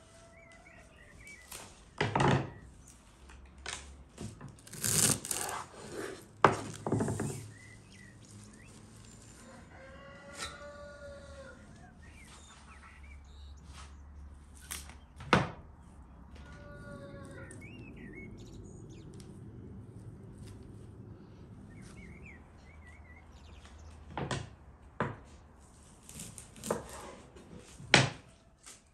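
Fresh dill and green onions being handled and put down on a wooden table and board: rustling leaves and a scattering of sharp wooden knocks, the loudest a little after the start, around the middle and near the end. Birds chirp faintly in the background.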